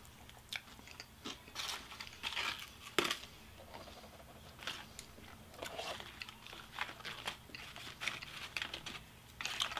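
Paper food packaging being crumpled and handled, in irregular crinkling rustles with a few sharp clicks.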